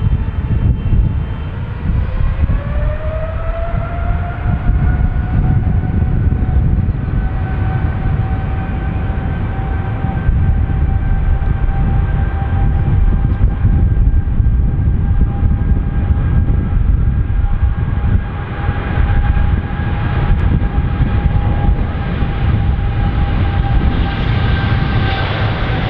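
Boeing 777's twin jet engines spooling up: a whine that rises in pitch over the first few seconds, then holds steady over a heavy rumble.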